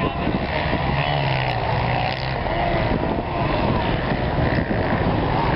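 Motor vehicle engines running: a steady low hum with a pitch that rises and falls.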